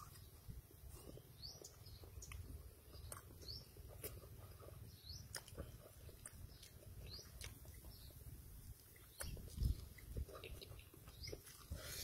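Close-up mouth sounds of eating instant noodles and boiled eggs: chewing with many small wet clicks and smacks, and louder noodle slurps near the end.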